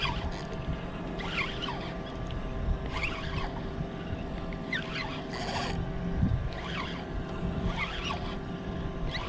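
Spinning reel cranked to retrieve fishing line from a boat, under a steady hum and wind buffeting the microphone. Short high squeaks recur about every second and a half, and a brief hiss comes about five and a half seconds in.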